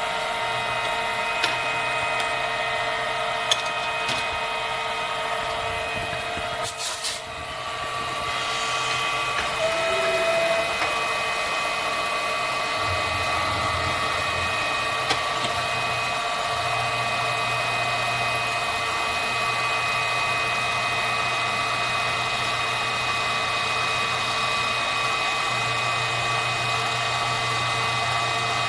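Milling machine running: a steady machine whine of several held tones over a low hum, with a few sharp ticks and a brief crackle about seven seconds in.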